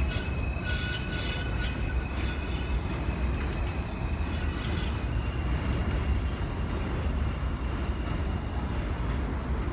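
New York City Subway J train pulling out along elevated track and running away into the distance. There is a steady rumble of wheels on rail, a patter of wheel clicks about a second in, and a faint steady electric whine.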